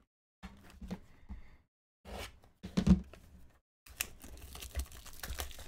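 Plastic wrapping on trading card packaging crinkling and tearing as hands pull it open, a dense crackle from about four seconds in, after a few scattered handling noises.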